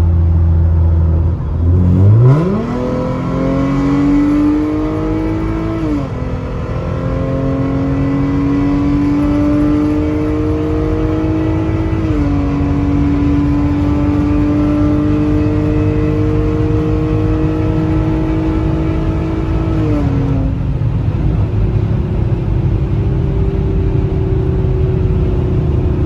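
Tuned 2016 Hyundai Genesis Coupe 3.8 V6 with test pipes, accelerating at full throttle. The revs jump sharply about two seconds in as the automatic kicks down, then climb through three upshifts spaced several seconds apart, before settling to a steady drone near the end.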